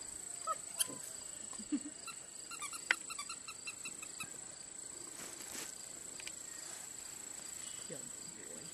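German Shepherd puppies about seven weeks old playing with toys on grass: a few soft knocks and scuffles, then a quick run of short high squeaks, over a steady high hiss.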